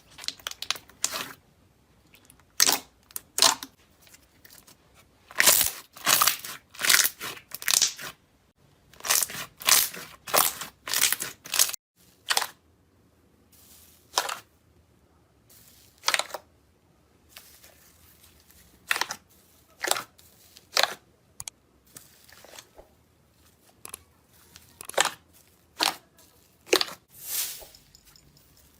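Slime being pressed and worked by hand, giving irregular sharp crackling pops and crunches, some in quick clusters.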